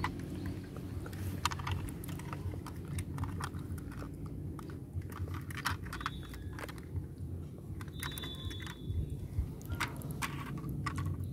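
Scattered small plastic clicks and knocks from a toy garbage truck being handled and turned over in the hand, with its tipping rear bin moved, over a steady low rumble.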